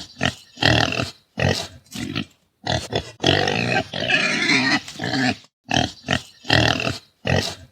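Pigs grunting in a series of short grunts, about one or two a second, broken by one longer, higher, wavering call about three seconds in that lasts around two seconds.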